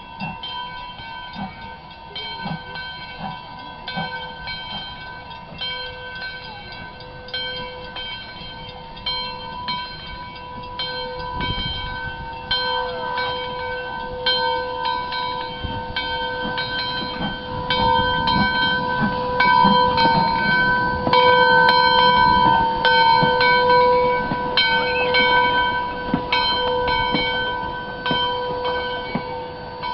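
Steam locomotive No. 110 rolling slowly past at close range, its rumble and exhaust growing louder about two-thirds of the way through as it draws alongside. A bell rings about twice a second throughout.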